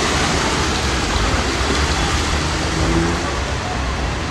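Heavy rain pouring down in a steady hiss, with vehicles driving through the flooded road.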